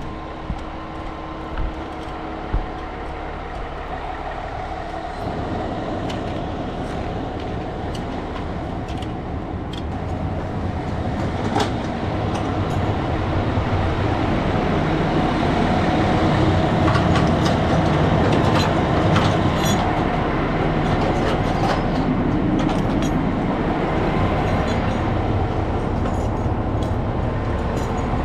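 Heavy crane truck engine running steadily while it hoists a rooftop HVAC unit, growing louder about halfway through, with a few faint clicks and knocks.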